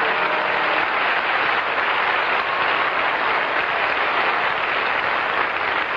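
Studio audience applauding steadily, a dense clapping that carries on without letup; the orchestra's last notes fade out within the first second.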